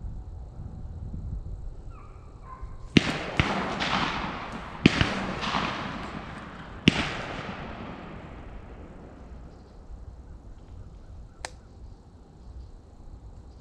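Gunshots: four sharp cracks over about four seconds, the first two close together, each trailing off in a long echo, then a fainter single crack a few seconds later.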